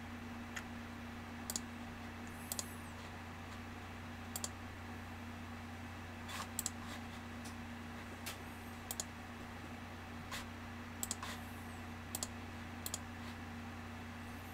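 Scattered clicks at a computer's mouse and keyboard, about a dozen, many in quick pairs, over a steady low electrical hum.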